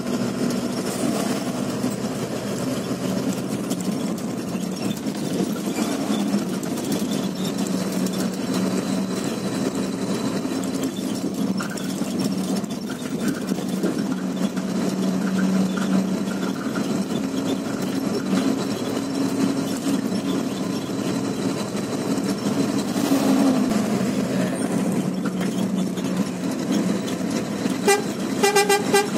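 Truck engine and road noise heard from inside the cab, a steady drone while driving. Near the end a horn sounds in a quick string of short toots.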